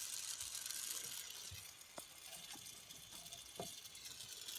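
Gas torch flame hissing steadily as it heats an aluminium radiator for soldering, with a few light clicks and taps.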